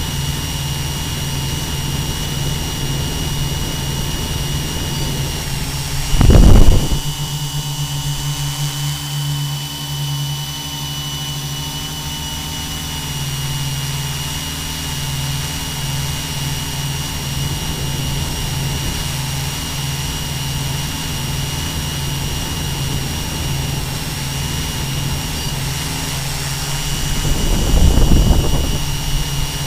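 Multirotor drone's electric motors and propellers humming steadily in flight, with a thin high whine held above the hum. Two brief louder low bursts come about six seconds in and again near the end.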